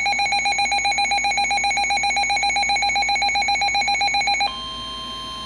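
Weather-alert radio alarm: a loud, fast-pulsing electronic beep. About four and a half seconds in, it switches abruptly to a steady, unbroken warning tone of about 1 kHz, announcing a tornado warning.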